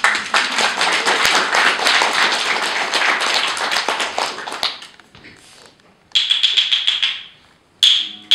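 Audience applause for about four and a half seconds, then fading out. After a short lull there is a brief ringing rattle, and a single sharp ringing strike near the end.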